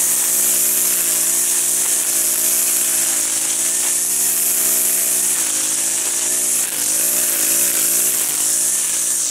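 Gas-powered string trimmer running at high speed while cutting grass, its engine pitch wavering up and down, most in the second half, over a loud high hiss.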